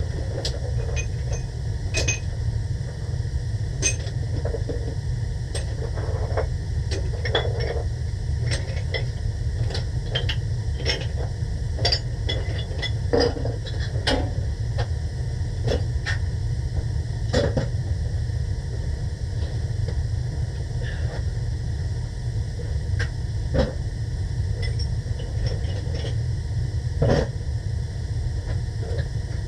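Hand tools clinking and knocking irregularly as they are gathered and packed away, over a steady low rumble.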